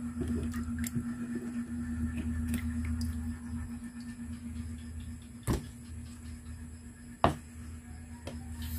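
Wet fish being shifted by hand in a plastic tub: low handling rumble over a steady hum, with two sharp clicks, one about five and a half seconds in and one about seven seconds in.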